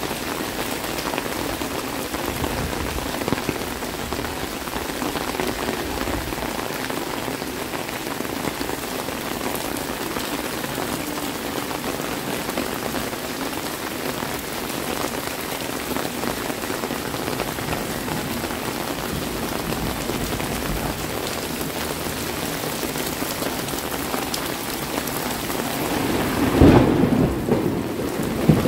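Heavy rain falling steadily. Near the end a loud, low rumble of thunder comes in.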